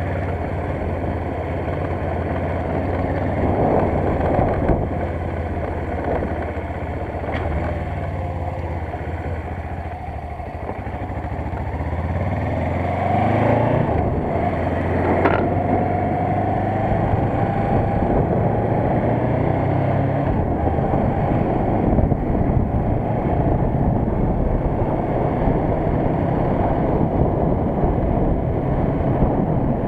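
Suzuki GS500 motorcycle's air-cooled parallel-twin engine running. It holds a steady low note at first, then grows louder and shifts in pitch from about twelve seconds in.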